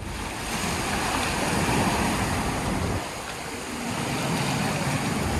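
Wind and sea waves: a steady rushing noise that swells and eases, dropping briefly about three seconds in.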